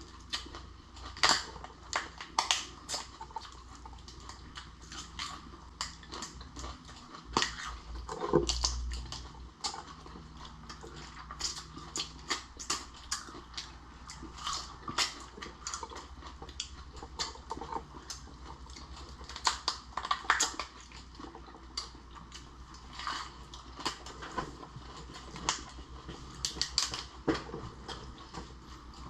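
Close-up eating of lobster and shrimp: irregular crunching, clicking and chewing sounds coming in clusters, with a brief louder thump about eight seconds in.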